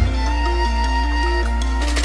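Background music: a soft instrumental passage with a held bass note under a gently stepping melody.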